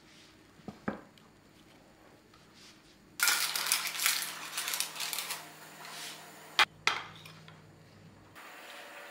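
Metal spoons scooping a crisp baked potato rose out of a parchment-lined ceramic baking dish: about two seconds of crackling and scraping, then two sharp clinks of the spoons close together.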